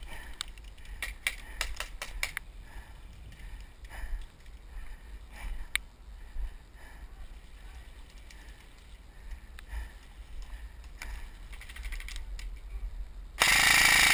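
Airsoft rifle fire: a quick, irregular string of sharp clicking shots in the first two seconds, then a few single shots. Near the end there is a loud rushing noise, just under a second long.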